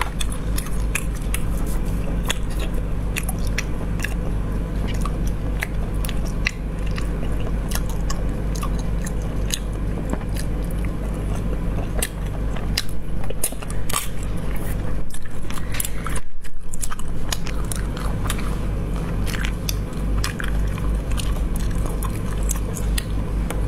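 Close-miked eating of braised snails: chewing and biting, with many sharp clicks and cracks as the shells are worked apart by hand. A steady low hum runs underneath, and the sound drops out briefly about two-thirds of the way through.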